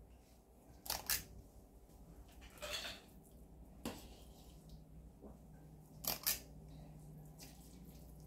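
Handling of a metal fork while scooping and spreading egg salad onto bread: a few sharp clicks and taps, in close pairs about a second in and about six seconds in, with a brief scrape near three seconds. A faint steady low hum comes in about halfway.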